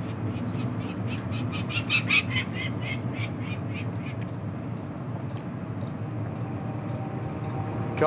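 Peregrine falcon calling in a rapid run of short, repeated notes, about five a second for some three seconds, loudest in the middle, over a steady low background rumble.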